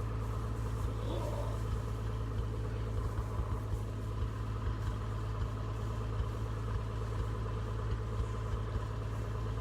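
Farm tractor engine running steadily, driving a small square baler, a constant low hum with a light irregular clatter.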